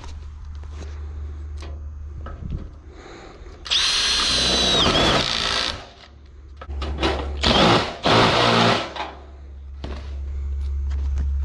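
Makita cordless drill driving screws into a wooden frame: one run of about two seconds with a steady high motor whine, then a few shorter runs close together. A steady low hum runs underneath.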